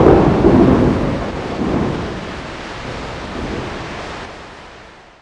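A thunderclap rumbling over rain, loudest at first and fading away, then cut off abruptly near the end.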